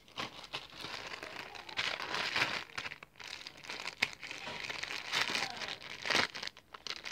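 Homemade glue slime being squeezed and stretched by hand, making an irregular crackling, crinkling noise that swells a few times.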